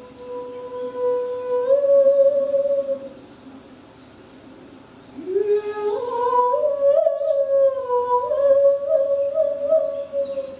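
A wordless voice humming long held notes that step and slide in pitch, in two phrases with a quieter gap about three to five seconds in; the second phrase opens with an upward slide.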